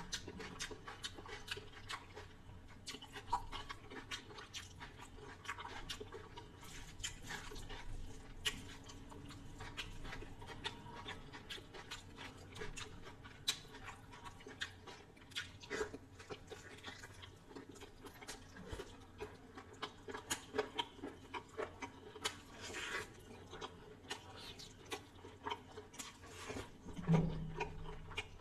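Close-up mouth sounds of a person eating chicken biryani and chicken curry: chewing and lip-smacking, heard as a steady run of small wet clicks, a little louder near the end.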